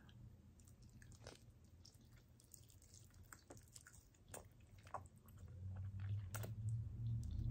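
Close-up mouth sounds of eating a chicken wing: chewing with scattered wet clicks and lip smacks as the meat is bitten and pulled off the bone. A low hum swells near the end.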